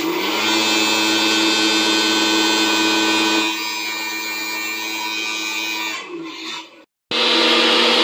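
Homemade PVC vacuum cleaner's brushless motor and fan running with a steady whine. It gets quieter about three and a half seconds in, then winds down with a falling pitch near the end of the sixth second. After a brief silence it is running loud again.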